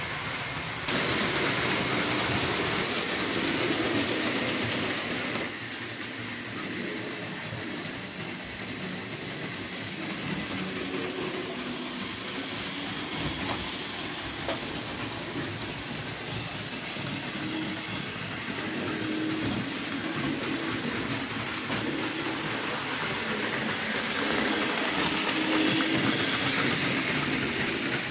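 Märklin model trains running on sheet-metal track: a steady rumbling whirr of wheels and small motors. It gets louder about a second in, drops back after about five seconds and swells again near the end.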